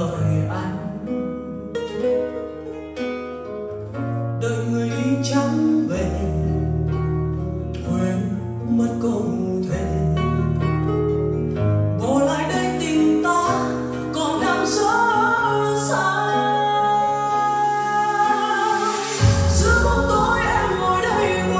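Music: a song with plucked guitar, held bass notes and singing.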